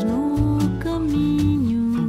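Background music: a song whose melody glides between notes over a low bass line.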